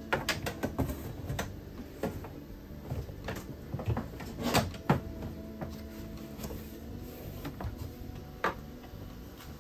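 Irregular knocks, clicks and scrapes of hands handling wires inside an open wooden cabinet. The loudest knocks come a little under halfway through.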